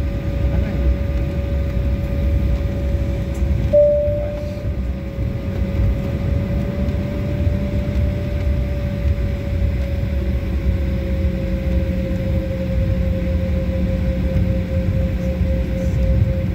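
Jet airliner taxiing, heard from inside the cabin: a steady low rumble with the engines' whine held at one pitch.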